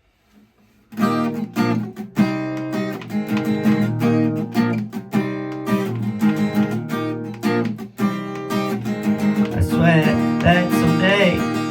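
Acoustic guitar strummed in steady chords, starting about a second in. A singing voice joins near the end.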